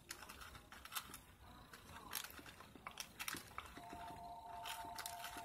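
Faint scattered clicks and taps of a paintbrush being worked in a plastic toy makeup palette and handled, about one a second. A faint steady two-note hum comes in about four seconds in.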